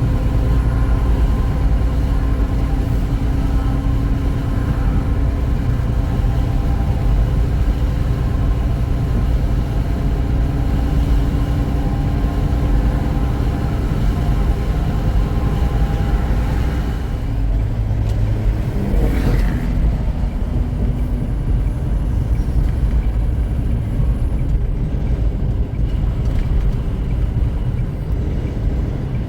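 Semi truck's diesel engine and road noise, a steady drone while cruising on the highway, with a short rising-and-falling sound about two-thirds of the way through.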